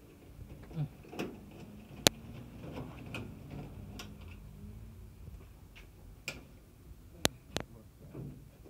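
Scattered sharp clicks and metallic taps as a screwdriver works a screw on a clothes dryer's sheet-metal top panel. The loudest click comes about two seconds in, with two more close together near the end.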